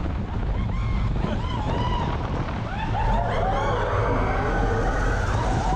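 Steel roller coaster train running fast along its track: a steady low rumble with wind on the microphone. Riders' high, rising-and-falling screams and whoops sound over it through much of the ride.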